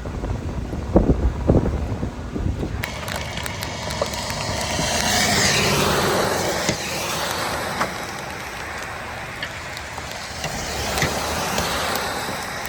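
Large hail and rain pelting a roadway: a dense hiss peppered with many sharp clicks of hailstones striking, swelling and easing. The first few seconds hold a few low thumps of wind buffeting the microphone before the hail starts.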